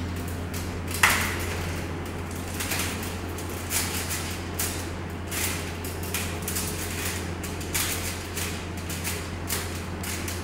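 Aluminium-framed walking robot with linear actuators, moving and stepping under a rider: irregular clicks and knocks from the frame and feet, about one or two a second. The sharpest knock comes about a second in, over a steady low hum.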